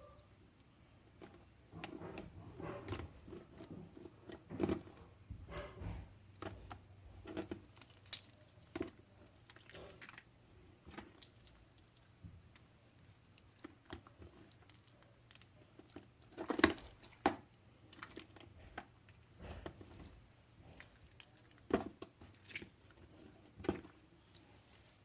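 Slime being squished and kneaded by hand, giving irregular wet pops and clicks, with a couple of louder pops about two-thirds of the way through.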